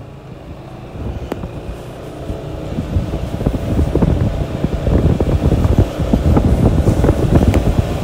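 Wind buffeting the microphone: a flickering low rumble that grows louder about three seconds in.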